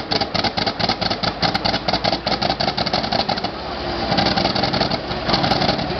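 M22 Locust light tank's engine being cranked in a hard start, chugging in rapid even beats of about seven a second. About three and a half seconds in it catches, and its sound grows louder and settles into steady running.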